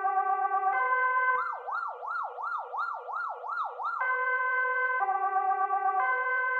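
Swedish police siren alternating between two tones about once a second. About a second and a half in it switches to a fast yelp sweeping up and down roughly three times a second, then returns to the two-tone pattern after about four seconds.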